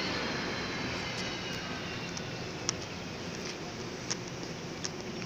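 Steady outdoor city background noise. A faint high whine, as of a passing vehicle, fades out over the first two seconds, and three short sharp ticks come in the second half.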